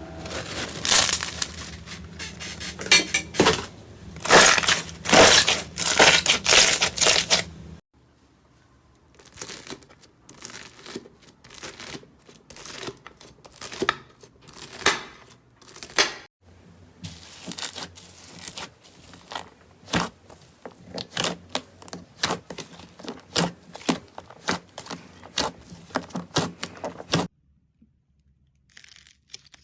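Slime being squeezed, stretched and pressed by hand, giving quick runs of crackles, pops and sticky tearing sounds in several separate takes. The first take is the loudest.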